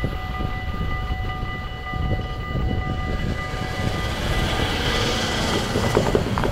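Dutch level-crossing bells ringing steadily over a low rumble, dying away as the barriers lift. Near the end a car drives over the crossing, its tyres rising to a hiss.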